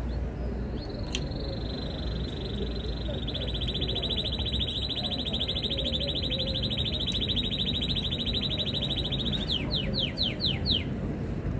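Canary singing: a long, fast rolling trill held for about eight seconds, then a quick run of falling notes near the end.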